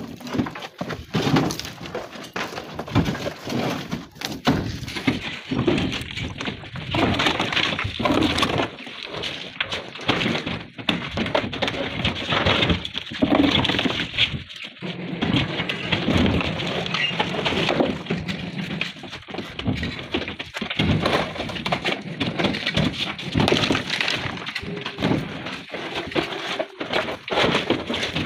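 Tarkwa flat stone slabs being lifted off a stacked truck load: irregular clattering, scraping and knocking of stone on stone, with loose chips grinding underfoot.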